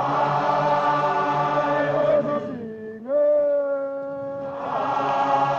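Soundtrack music of chant-like singing: long held vocal notes that dip in pitch about two and a half seconds in and come back up, swelling fuller near the start and again near the end.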